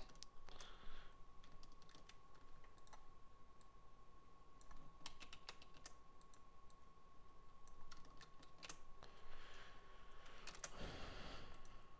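Faint, scattered clicks of a computer mouse and keyboard, over a steady faint high whine.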